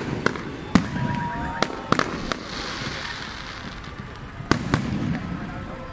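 Aerial fireworks bursting overhead: about seven sharp bangs at uneven intervals, with a high hiss for about a second in the middle.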